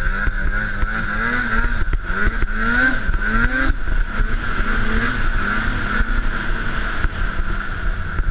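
Polaris Indy 600 snowmobile's 600cc two-stroke twin running under way. The engine pitch repeatedly climbs and eases as the throttle is worked through the first few seconds, then holds steadier.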